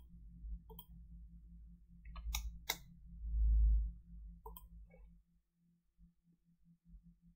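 Computer mouse clicks, about six spread over the first five seconds, as dimensions are placed in a CAD program. A low rumble about three and a half seconds in is the loudest sound. A faint low hum sits underneath.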